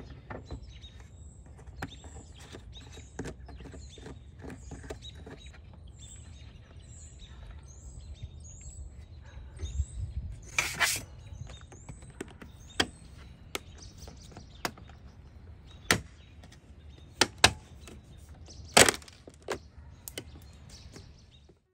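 Roof rack crossbar and its plastic end feet being handled and fitted onto a Chrysler Pacifica's roof rails: scattered clicks and knocks, with a few sharper snaps in the second half. Birds chirp in the background.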